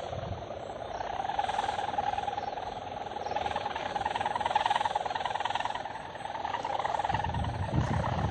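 Steady droning hum from a flying pegon kite in strong wind, held at one pitch and swelling and fading as the wind gusts. Low wind buffeting on the microphone comes in near the end.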